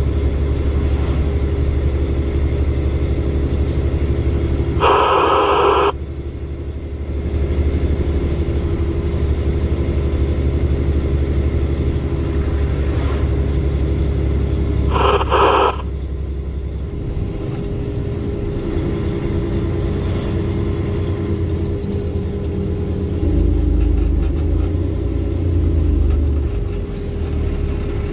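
Tri-axle dump truck's diesel engine and road noise while driving, a steady low rumble. Two short louder bursts of noise come about 5 and 15 seconds in, and the engine note drops and deepens in the last third.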